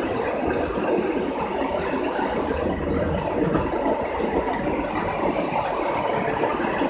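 O gauge tinplate model trains running on the layout's track: a steady run of wheel-on-rail noise and motor sound with no pauses.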